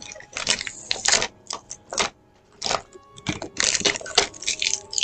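Toy packaging crinkling and rustling in quick, irregular bursts as an action figure is taken out of its box.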